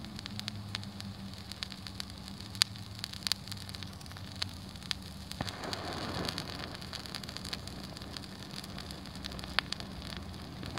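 Potassium permanganate, glycerine and aluminium powder mixture self-igniting and burning, with scattered sharp crackles and pops. A brief hissing flare comes about five and a half seconds in.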